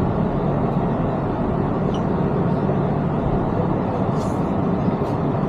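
Steady rumble and hiss of an elevated train car heard from inside the carriage.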